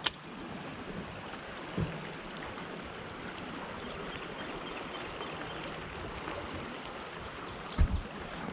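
Steady rushing of flowing river water, as over a shallow riffle. A dull knock sounds about two seconds in and a couple more near the end, typical of gear or a paddle bumping a kayak hull.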